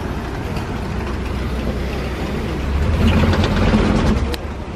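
Safari truck's engine running as it drives along the reserve track, with steady road rumble; the engine hum grows louder about three seconds in, and a few sharp rattles sound near the end.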